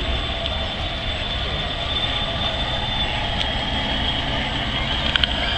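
Radio-controlled model boats running on a pond: a steady high electric-motor whine over a low rumble, the whine weakening about three seconds in.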